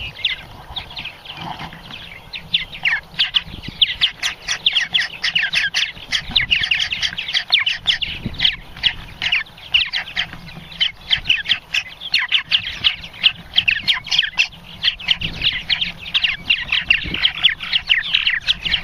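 Purple martins chattering inside a nesting gourd: a dense, rapid run of short chirps and squawks. It is thinner for about the first two seconds, then packed with overlapping calls.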